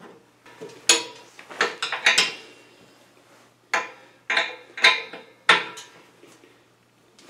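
Small metal wrench clinking against a brass drain fitting on the underside of a steel air compressor tank as the fitting is tightened: about seven sharp metallic clinks, each with a short ring, at uneven intervals.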